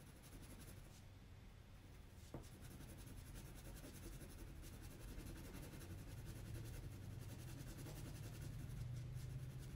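Wax crayon rubbing back and forth on paper in faint shading strokes, growing slightly louder, with one light click a couple of seconds in.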